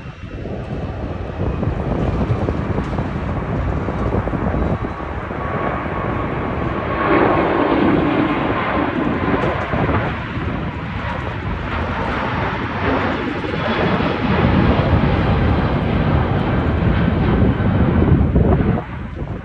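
Jet airliner taking off, its engines at take-off thrust making a loud, continuous rumble that swells about seven seconds in and again near the end.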